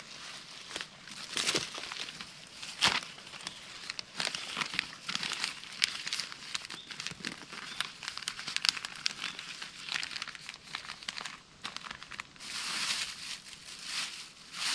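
Thin plastic bag crinkling as it is handled and packed, with irregular rustles and a few sharp crackles.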